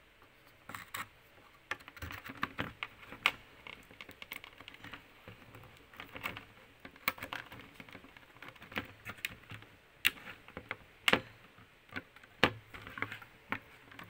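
Hands seating a HyperX DDR4 memory module into a motherboard RAM slot: irregular small plastic clicks and taps, with a few sharper clicks in the last few seconds.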